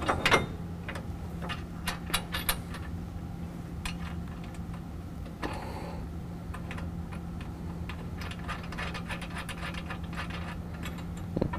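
Light metallic clicks and taps of a washer and locking nut being fitted and spun on by hand onto a steel bolt through a bumper bracket, over a steady low hum.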